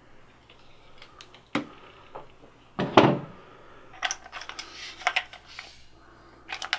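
Hand-handling of plastic and brass plumbing fittings: a few sharp clicks and knocks, the loudest about three seconds in, then lighter clicking and scraping as a brass fitting is screwed onto a plastic elbow.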